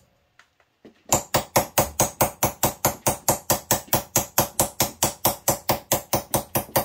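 Ball-peen hammer beating a sheet-steel rose petal on a wooden stump. About a second in, a fast, even run of blows begins, roughly six a second, stretching the middle of the petal so it curls up into a bowl.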